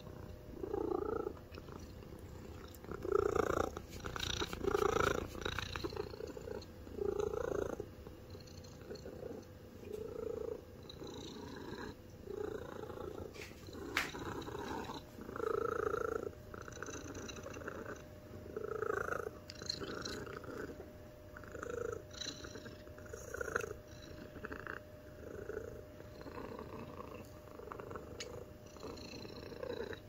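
Domestic cat purring close to the microphone, fairly loud, the purr swelling and fading about once a second with each breath. A single sharp click about halfway through.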